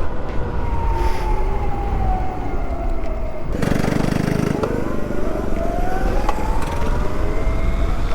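Electric dirt bike's brushless motor and chain drive whining, the pitch falling as it slows and then rising again as it speeds up, over a rumble of wind and tyre noise. About three and a half seconds in the sound changes abruptly for about a second.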